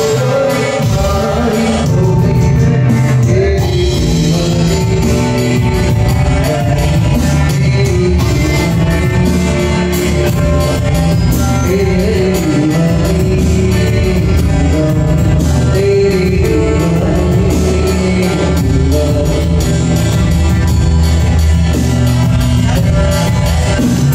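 Live band playing a Sufi song medley: a singer's melody over drums keeping a steady beat, with cymbals.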